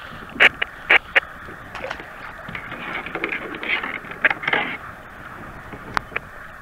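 Handling a wire crab ring and a rock crab on a kayak: several sharp clicks and knocks in the first second, scraping and rustling through the middle, and another click near the end.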